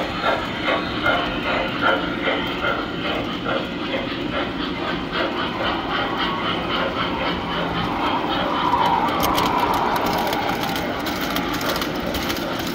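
Tinplate model trains running on three-rail track: a steady running sound with the wheels clicking over the rail joints, about three clicks a second at first and quicker later. It grows louder a little past the middle as a train of passenger cars passes close by.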